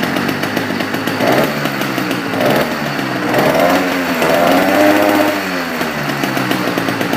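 80cc two-stroke motorized bicycle kit engine running after being pull-started, revved up and down a few times in the middle, its pitch rising and falling.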